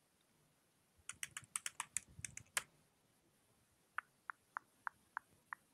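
Faint typing on a computer keyboard, picked up through a video call: a quick run of about ten key taps, then after a pause six lighter, evenly spaced taps.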